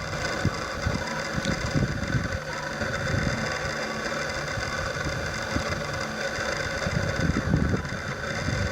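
Steady outdoor background rumble and hiss, with wind buffeting the microphone in low, irregular gusts.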